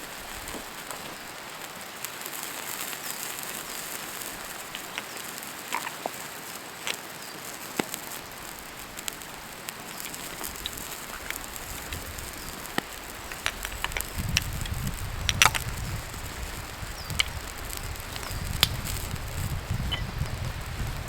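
Wood campfire crackling, with irregular sharp pops and snaps over a steady hiss; a low rumble joins about two-thirds of the way through.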